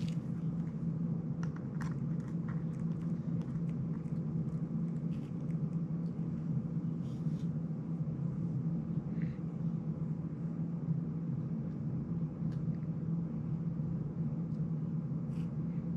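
Steady low hum, with a few faint small clicks and ticks from a small screwdriver working screws on a plastic drone frame.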